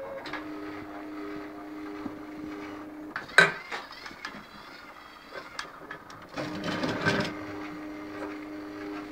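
Stepper motors of a homemade robotic arm driving its joints, a steady hum at a fixed pitch. It stops about three seconds in with a sharp click, then starts again about six seconds in.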